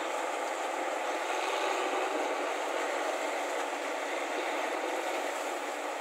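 New Holland 8060 combine harvester running steadily while it cuts and threshes ripe rice: an even mechanical din of engine, header and threshing works.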